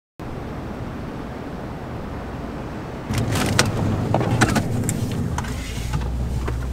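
A vehicle runs, heard from inside the cab, as a steady hiss. From about three seconds in a louder low hum joins it, with scattered clicks and knocks from things being handled.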